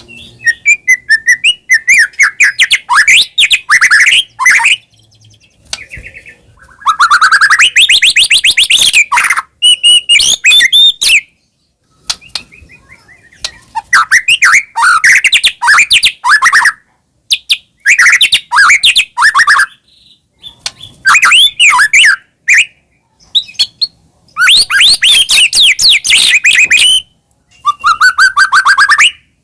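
White-rumped shama (murai batu) singing loudly in a series of about eight separate phrases. Each phrase is a rapid run of varied whistled and chattering notes, with short pauses between phrases.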